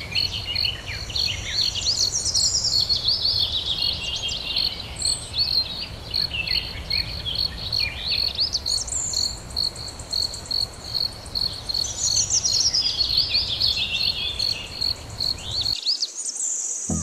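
An insect chirping in a steady train of evenly spaced, high pulses, with bursts of quick, high twittering bird calls over it. A low background rumble stops about a second before the end.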